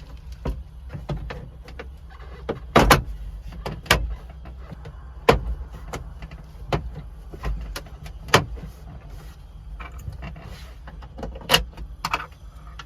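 Scattered clicks, taps and sharp knocks of hands working plastic cab trim, a switch and wiring, over a steady low hum.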